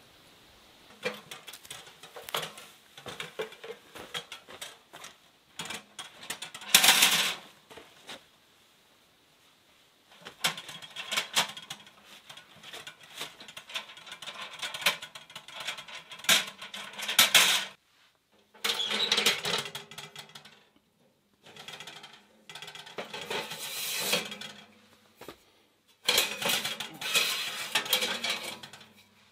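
Clinks, clanks and scraping of a steel Winnerwell Woodlander camp wood stove being handled and set in place, then nested stovepipe sections slid out of the stove's body, in spells with short pauses between. One louder clank comes about seven seconds in.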